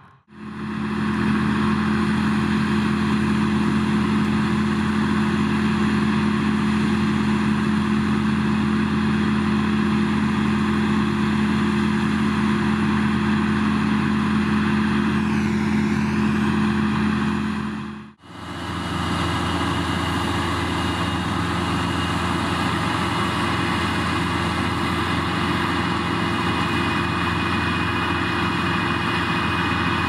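Claas combine harvester running steadily with tractors nearby: a constant engine and machinery hum with a strong low tone. It breaks off briefly about 18 seconds in and resumes.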